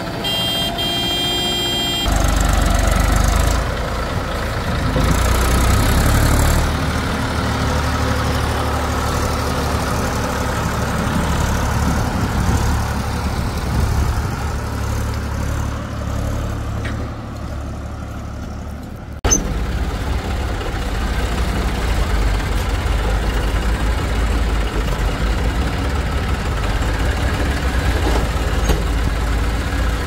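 Heavy diesel engines of earth-moving and farm machinery running, with a steady low rumble. A brief high-pitched tone sounds in the first two seconds, and the rumble grows louder about two seconds in. A sharp click about two-thirds of the way through is followed by a steady, slightly louder rumble.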